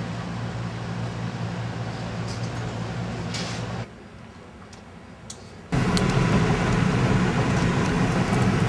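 A steady mechanical hum, then a quieter stretch, then from about six seconds in louder car road noise heard from inside the cabin as it drives along a gravel lane.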